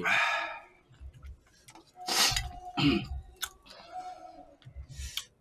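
Close-miked eating sounds: small clicks of a spoon against a disposable cup and chewing, with a few short airy slurping noises and a brief vocal sound about three seconds in.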